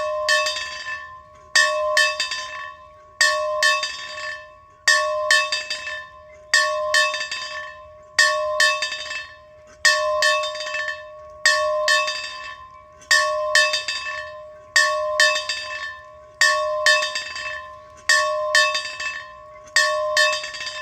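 A bell rung in a steady rhythm, struck about every second and a half, thirteen times. Each stroke is a double hit, the clapper striking and then striking again a moment later, and the bell's tone rings on and fades between strokes.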